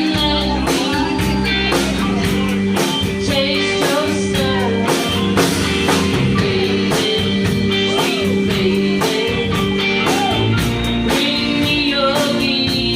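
A live blues-rock band playing: a singer over guitar, bass and a drum kit keeping a steady beat.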